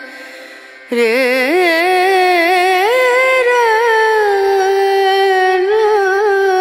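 Music: a solo voice singing a slow melody in long, ornamented, wavering notes. After a quieter first second, a loud new phrase starts abruptly.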